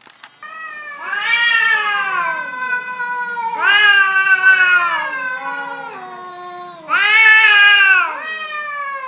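Domestic cats yowling at each other in a standoff. There are long, drawn-out wails that slide slowly up and down in pitch. They begin about a second in, and the loudest come near the middle and near the end.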